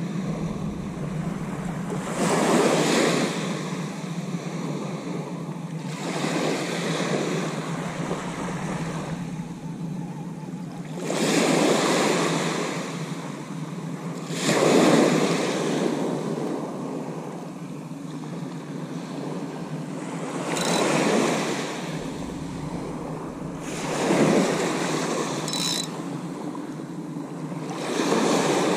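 Small waves breaking and washing up a sand-and-shingle beach, surging about every four seconds.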